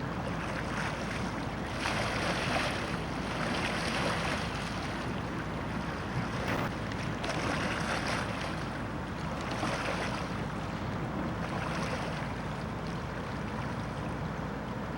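Wind on the microphone over open water, a steady rushing noise that swells and eases every second or two.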